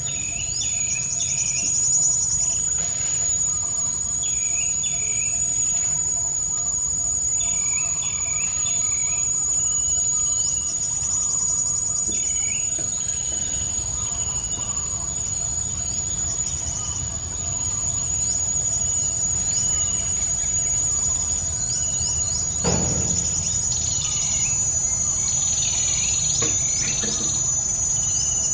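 Steady high-pitched insect drone, with birds calling in short repeated chirping phrases over it. One brief knock toward the end.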